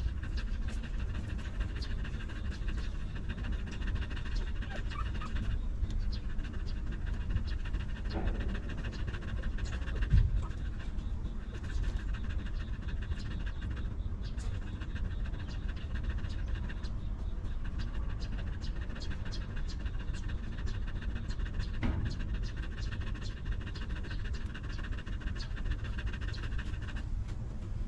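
Mother dog panting steadily with her tongue out. A single low thump about ten seconds in.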